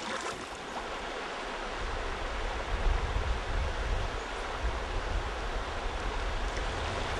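A shallow, rocky mountain river rushing steadily, with a low rumble joining about a second and a half in.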